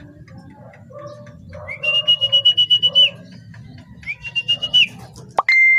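A whistle blown twice in quick, trilled blasts, the first about a second long and the second shorter. Near the end a single long, steady, high whistle tone comes in with a quick upward slide, over faint background cooing.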